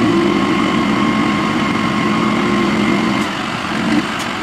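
Dump truck's diesel engine running steadily with a held whine while the bed is raised to tip out its load of gravel; the whine drops away a little after three seconds.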